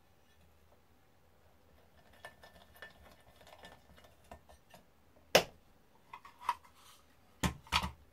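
Small metallic clicks and scrapes of a screwdriver working the screws of a finned aluminium charge-controller case, then a single sharp metal clack about five seconds in and two louder knocks near the end as the case is handled.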